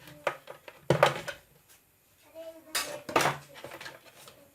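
Hard clattering and knocking as mixer grinder parts are handled and set down, with two louder clusters of knocks, about a second in and again near three seconds in.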